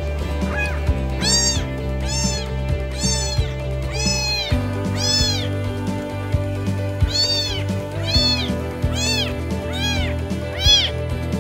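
A very young kitten crying, about ten short high-pitched meows roughly one a second, each rising and then falling, with a brief break midway. Background music with sustained low chords plays underneath.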